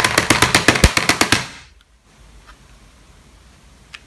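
Cheap plastic Gaxio FG-82MS scientific calculator being banged rapidly on a hard surface as a durability test: a fast clatter of sharp knocks, about ten a second, that stops about a second and a half in. A single faint click follows near the end.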